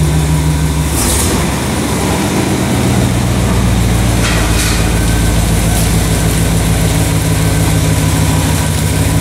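Old Chevy pickup truck engine idling loudly and steadily with a deep, even exhaust note.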